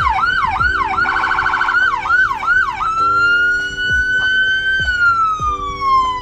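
An emergency vehicle's electronic siren, first in a rapid yelp of quick up-and-down sweeps. After about three seconds it switches to a slow wail that rises, then falls away steadily near the end, with a steady lower tone underneath.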